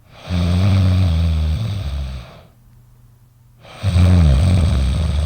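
Loud snoring: two long, deep, rattling snores, each about two seconds long, the second starting about four seconds in.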